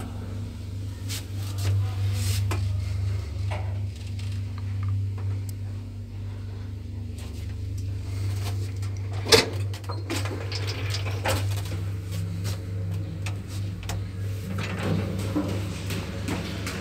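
Traction elevator car riding: a steady low hum with scattered clicks and rattles, and one sharp knock about nine seconds in. A second, higher hum joins in the last few seconds.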